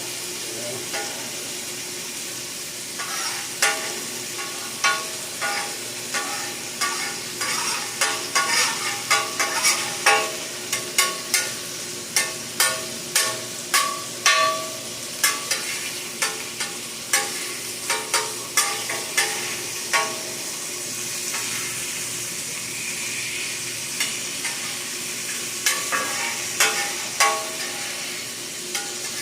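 Burgers sizzling steadily on a hot steel griddle. Many sharp metallic clicks and taps sound over the sizzle through the middle of the stretch and again briefly near the end.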